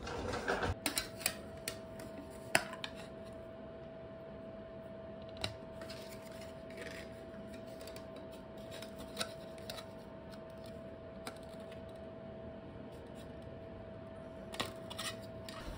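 Scattered light clicks and taps of a metal license plate and chrome plate frame being handled and fitted against a motorcycle's rear fender, with one sharper click about two and a half seconds in, over a faint steady tone.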